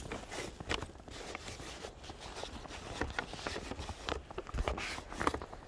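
Footsteps in fresh snow, a person walking, heard as a series of short, irregular steps.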